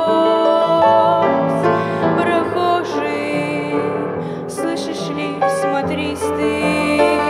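Slow hymn tune played on piano, with held chords.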